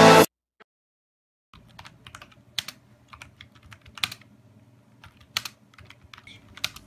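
Typing on a computer keyboard: scattered key clicks at an irregular pace over a faint low hum. Music cuts off abruptly at the very start, and about a second of silence follows before the typing begins.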